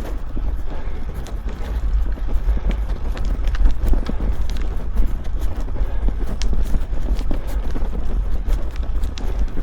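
Wind buffeting the microphone of a cyclist riding uphill: a steady heavy rumble with scattered short ticks.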